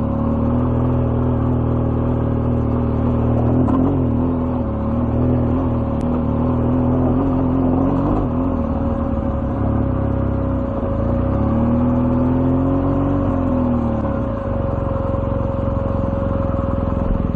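BMW R1200GS boxer-twin engine running at low revs under load on a rough, rocky climb. The note wavers with the throttle and briefly rises and falls about eleven seconds in.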